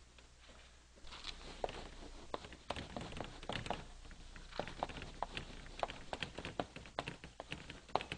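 Chalk tapping and scraping on a slate blackboard as words are written: a quick, irregular run of sharp taps that starts about a second in.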